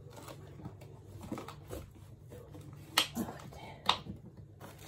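Thin PVC wall panel being pressed flat against the wall by hand: soft rustling and taps, with two sharp clicks about a second apart past the middle.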